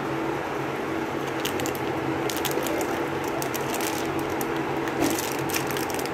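Clear cellophane lollipop wrapper crinkling in the hand, with irregular crackles starting about a second and a half in, over a steady low hum.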